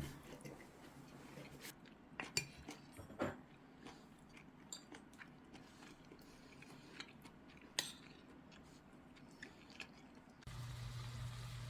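Eating sounds: quiet chewing, with cutlery tapping and clinking against dishes a few times. Near the end a steady low hum starts.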